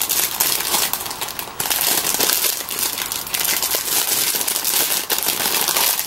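Thin, flimsy clear plastic bag crinkling and crackling continuously as hands work it open close to the microphone.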